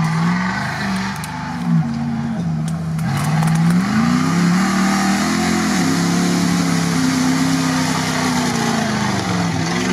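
Modified Dodge Ram pickup's engine revving up and down again and again as the truck pushes through deep swamp mud, louder from about three seconds in as it comes closer.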